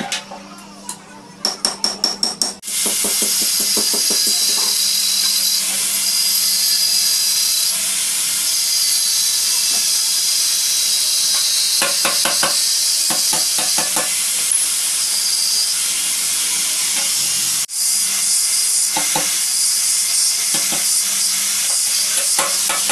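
Handheld electric angle grinder cutting metal: a loud, steady hiss from the disc, with a short break about three quarters of the way through. Just before the grinding starts there is a quick run of about seven sharp knocks.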